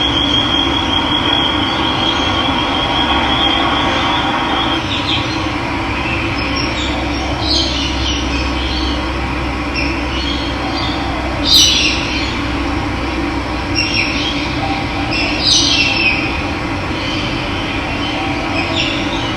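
Steady rush of running water, with birds calling over it: a high, thin trill for the first four seconds, then several short falling calls spread through the rest.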